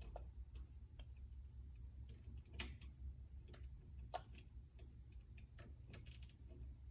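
Faint, irregular small clicks and taps of a screwdriver and wires working at a thermostat's terminal screws, two of them louder about two and a half and four seconds in, over a low steady hum.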